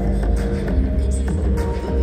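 Show music playing at a steady loudness with a heavy, deep bass.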